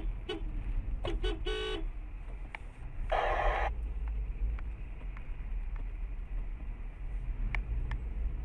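Car horns honking in traffic: a quick run of short toots about a second in, then a half-second honk about three seconds in, over the steady engine and road rumble heard inside a moving car.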